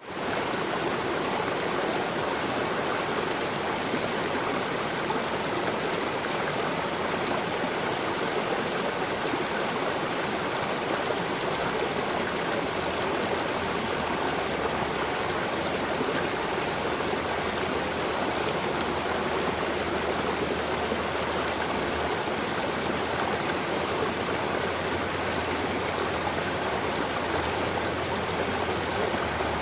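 Small creek tumbling over rocks in a short cascade: a steady rush of running water.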